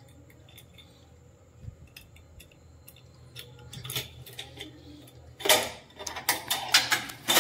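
Keys jangling and metal clinking as a metal gate is unlocked and opened: faint scattered ticks at first, then a louder run of sharp metallic rattles in the last two seconds.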